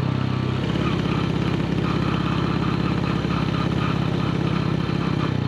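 Honda Win 100's single-cylinder four-stroke engine running as the motorbike rides along, its note changing shortly after the start.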